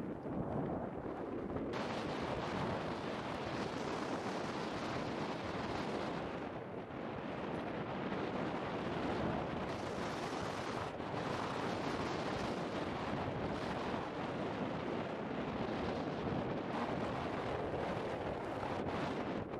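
Volcanic eruption: a continuous roar with dense crackling running through it. The roar gains a brighter, hissier edge about two seconds in and dips briefly near seven seconds.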